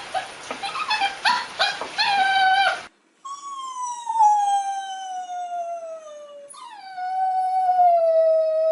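A dog giving a run of short, whiny yips, then two long howls: the first slides steadily down in pitch, the second holds nearly level.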